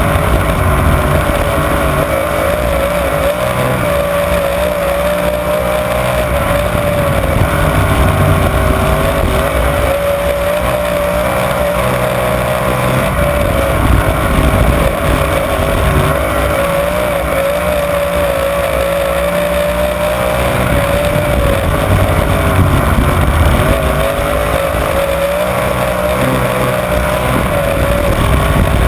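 Sprint car's V8 engine at racing speed, heard from on board: a loud, unbroken drone whose pitch rises and falls slightly as the throttle is worked through the turns.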